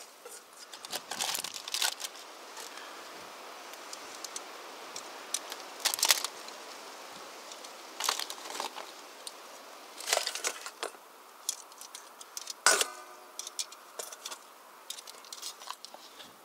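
Metal utensils and pots clinking and scraping against a stainless steel salad bowl, with salad leaves rustling, in short irregular bursts. One sharper clink about three-quarters of the way through rings briefly.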